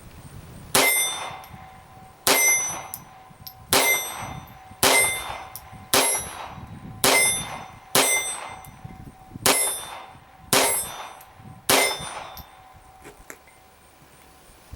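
A Colt Woodsman Match Target .22 LR semi-automatic pistol fired ten times at a slow, even pace, about one shot every second or so. Each shot is a sharp crack followed by a metallic ring at the same pitch every time.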